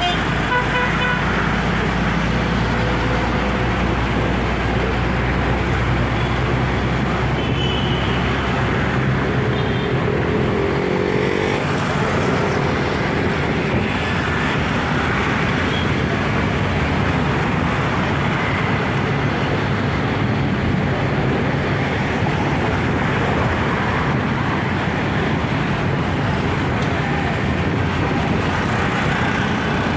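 Busy road traffic: a steady mix of engine and tyre noise, with short car-horn toots near the start and again about eight seconds in.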